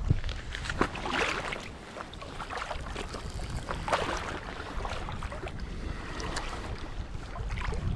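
Sea water sloshing and splashing around the legs of someone wading through shallows, in uneven surges, with wind rumbling on the microphone.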